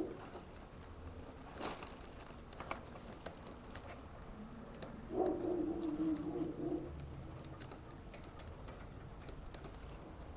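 Light metallic clicks and rattles of a tool and bicycle parts being handled while an oil-filter wrench is fitted onto a freewheel, with a sharper click about two seconds in and a short pitched creak or hum near the middle.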